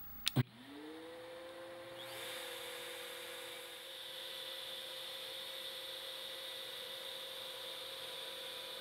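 Two quick clicks as the power switches on, then the ShopVac motor spins up to a steady hum. About two seconds in, the CNC's trim-router spindle spins up with a higher whine, and both run steadily.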